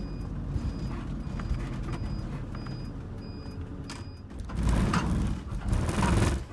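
Motorhome cab on the move: engine and road rumble with the cabin creaking and rattling, and the turn indicator beeping about every two-thirds of a second as it turns in through the gateway. About four and a half seconds in, the rumble and rattling get louder.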